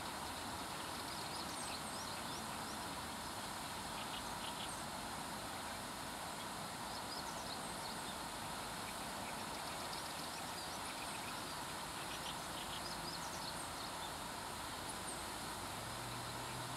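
Steady rush of water spilling through a river floodgate, with scattered short, high chirps of small birds throughout. A low hum comes in near the end.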